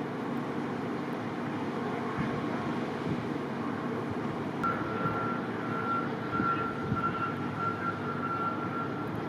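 Vehicle engines running in deep snow with a steady rumble, joined about halfway in by a thin, high, slightly broken tone that lasts almost to the end.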